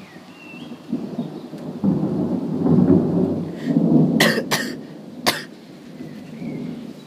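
Rolling thunder: a low rumble that swells over a few seconds and fades again, with three sharp cracks near its peak.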